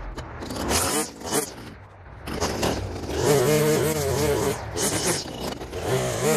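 Gas string trimmer being pull-started: a couple of quick cord pulls, then the engine catches about three seconds in and runs with a wavering pitch.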